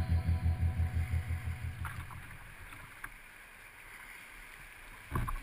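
River water rushing and splashing around a kayak's bow through a riffle, with a couple of light knocks about two and three seconds in. The tail of rhythmic background music fades out over the first two seconds, and new music starts right at the end.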